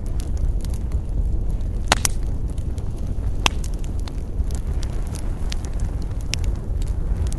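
Campfire crackling, with many small snaps over a steady low rumble and two sharp pops, about two seconds in and again about three and a half seconds in.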